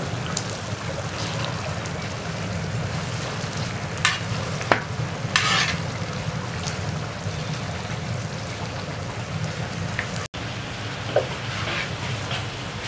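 Rice cooking in oily broth in a large pilaf kazan, bubbling and sizzling steadily, with a few short scrapes of a long-handled metal skimmer stirring the rice near the middle and once near the end.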